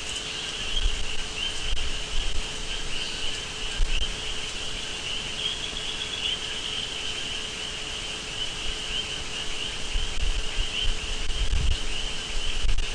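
Steady high-pitched chirring of insects, with a faint steady hum underneath and a few low rumbles.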